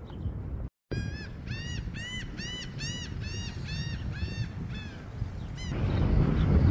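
A gull calling, a series of about a dozen rising-and-falling cries at roughly two a second, over a low rumble of wind or surf that grows louder near the end. The sound cuts out briefly just before the calls begin.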